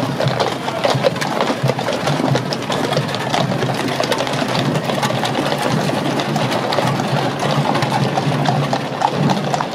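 Horse-drawn state coach passing close by: its wooden spoked wheels rumbling and rattling on the road, with a dense run of clicks and clatter from the horses and the marching escort.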